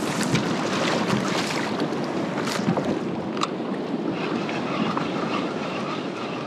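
Wind buffeting the microphone over the wash of sea waves around a fishing kayak, with a couple of sharp ticks midway.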